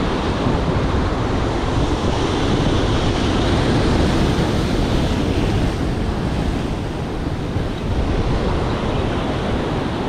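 Ocean surf breaking and washing over the rocks, a steady loud rush of water, with wind buffeting the microphone.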